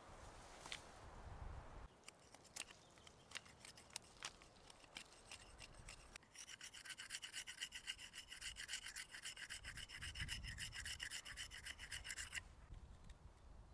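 A few light knocks on wood, then a small hand saw cutting through a stick: about six seconds of quick, even back-and-forth rasping strokes, several a second, that stop suddenly.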